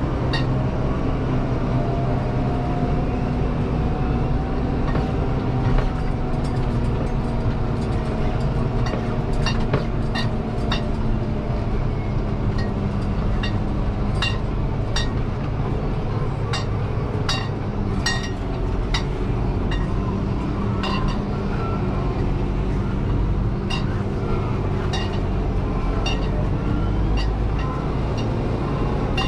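Deutz-Fahr 6185 TTV tractor's six-cylinder diesel engine running steadily, heard from inside the cab, with frequent short clicks and rattles over the drone.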